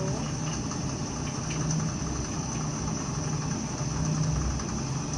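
Electrolux front-loading washing machine running mid-wash: a low motor-and-drum hum that swells and eases now and then, with a faint steady high whine above it.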